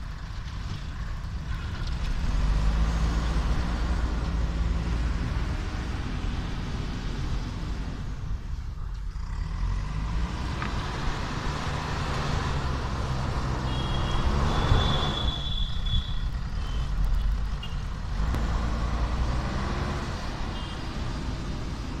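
JCB backhoe loader's diesel engine running under load, its pitch rising and falling as the front bucket pushes and levels sand. A brief high-pitched squeal sounds about two-thirds of the way through.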